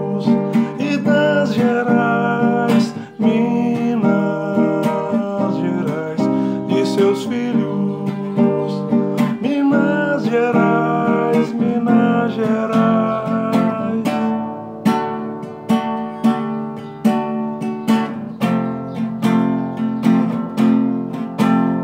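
Acoustic guitar strumming a steady rhythm in an instrumental break between sung verses of an MPB song, with a melody moving above the chords.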